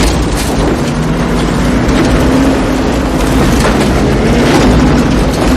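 Pickup truck driving through a tornado's storm: a loud, dense, steady rush of wind and rain noise over the truck's engine, with a low steady hum under it.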